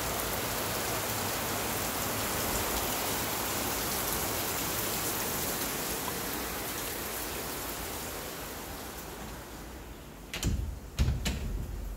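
Heavy rain falling in a steady hiss that fades and grows muffled over the second half as it is heard from indoors. Near the end, three short knocks.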